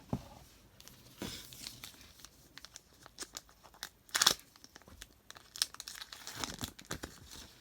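Foil wrapper of a football trading card pack crinkling and being torn open by hand, with irregular crackles and a loud rip about four seconds in.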